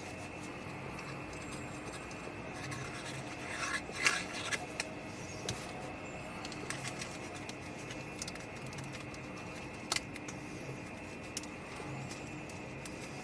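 Die-cut cardstock pieces handled and fitted together on a desk: paper rubbing and rustling, loudest about four seconds in, with a single sharp tap near ten seconds, over a steady faint hum.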